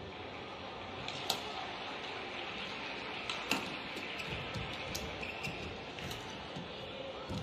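Badminton rally: four sharp racket-on-shuttlecock hits, spaced one to two seconds apart, over the steady background noise of the arena.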